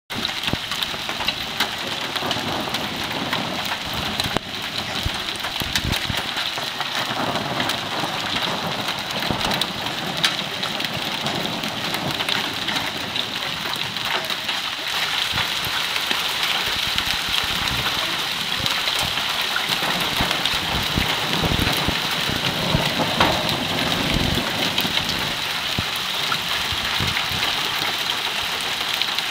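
Hail and heavy rain pelting down: a dense, steady patter with many sharp individual hits, growing slightly louder in the second half.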